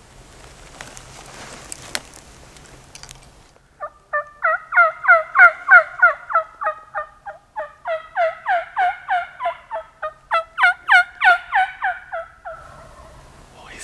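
A long, loud series of turkey yelps, about four a second, each note breaking downward in pitch, with a short pause about halfway through.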